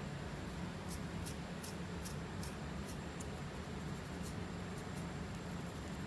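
Short, crisp scratching strokes on a dry, flaky scalp through coarse hair, about two or three a second, over a steady low background hum.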